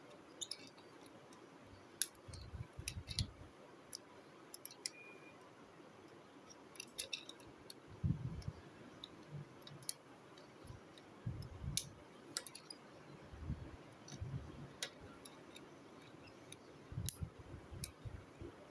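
Plastic parts of a small transforming toy car clicking and snapping as they are folded and turned by hand. The clicks come at irregular intervals, with low thuds of handling in between.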